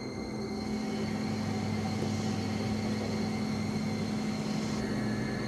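An engine running steadily with a low, even hum, getting a little louder about half a second in.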